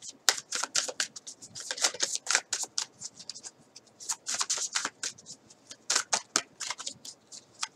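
Tarot cards being shuffled by hand: an irregular run of quick paper snaps and flicks.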